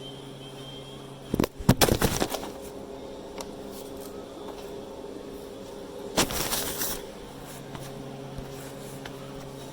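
Welding arc on a ground-out crack in a cast-iron engine block, struck twice in short crackling spells, the first about a second in and the louder, the second near the middle. A steady electrical hum runs underneath.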